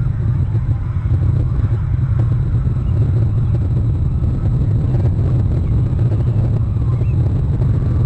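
Steady low rumble of wind buffeting an outdoor microphone, with a few faint, short, high bird calls over it: one near the start and one about seven seconds in.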